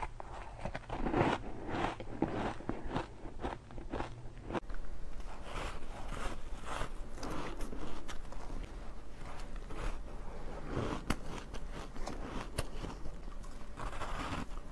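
Close-miked biting and chewing of soft, crunchy shaved ice and freezer-frost ice: a quick run of separate crunches with each bite and chew.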